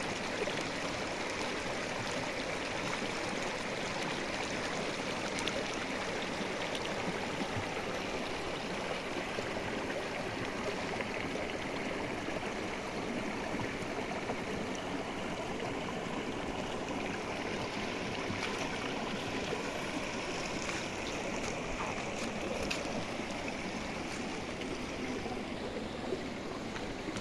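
A rushing river flowing steadily, an even wash of water noise.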